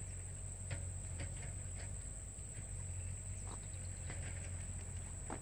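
Outdoor ambience of a steady, high-pitched insect drone, with a low steady hum beneath and a few faint scattered clicks.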